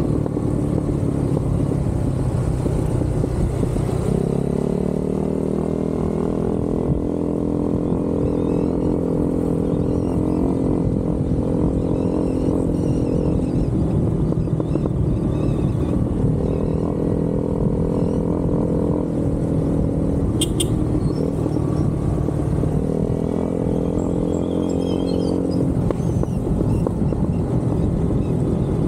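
Motorcycle engine running on the move, with a low rush of wind over the microphone. The engine note steps up and down several times, about 4, 13, 16, 19, 23 and 26 seconds in, as the throttle and gears change.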